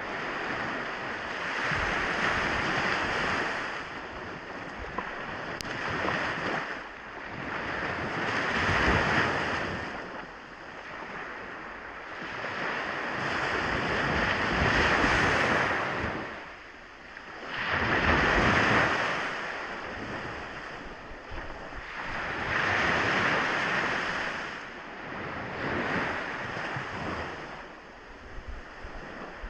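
Sea waves breaking and washing up a beach, one surge about every four seconds, each swelling and then drawing back.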